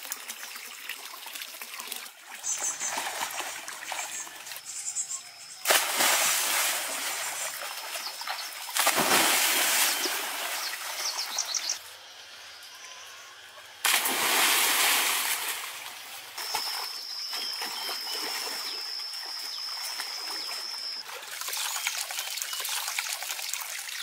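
Water splashing and sloshing around a person swimming in a pool, in several loud bursts that start suddenly.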